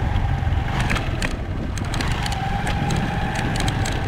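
Motorcycle engine running steadily while riding over a rough dirt trail, under a heavy low rumble, with scattered sharp clicks and knocks from the bumpy ground.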